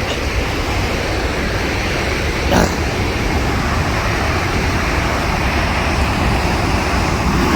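Steady rushing roar of a large waterfall, Wapta Falls on the Kicking Horse River, growing slightly louder, with a brief knock about two and a half seconds in.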